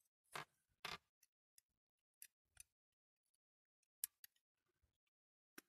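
Near silence broken by about seven faint, short clicks and taps of a die-cast metal toy crane and a small pin being handled while the pin is lined up with its hole.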